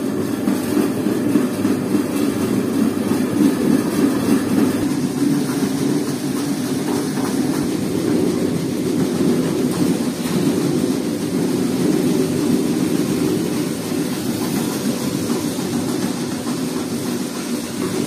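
Peanut sorting machine running: its motor-driven shaking sieve tray rattles steadily as peanuts travel across the mesh.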